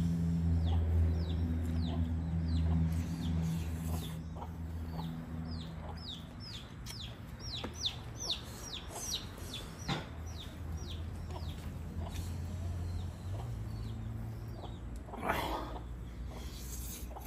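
Free-ranging chickens calling: a run of short, high, falling peeps, several a second, over a low steady hum that fades after a few seconds, and one louder, harsher call near the end.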